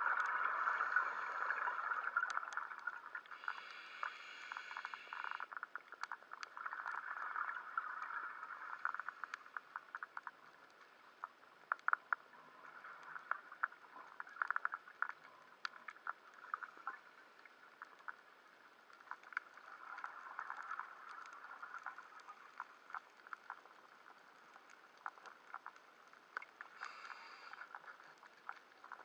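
Underwater reef ambience: dense, irregular crackling clicks, the crackle typical of snapping shrimp on a reef, heard with the camera under water. A few short high whines come in near the start, a few seconds in and again near the end.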